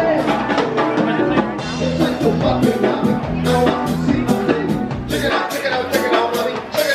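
Upbeat pop song with a steady drum beat and a singing voice.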